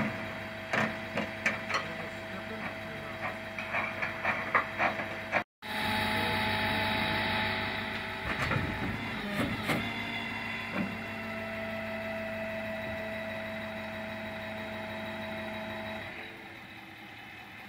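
A quick run of sharp metal clicks and knocks at the trailer hitch, then the flatbed truck running with a steady hum that drops away near the end.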